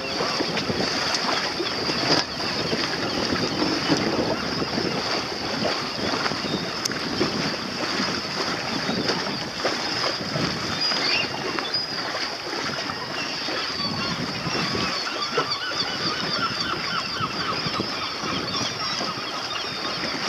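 Seabirds on the rocks calling over and over, many short calls overlapping and thickest in the second half, over a steady rush of wind and water around a moving boat.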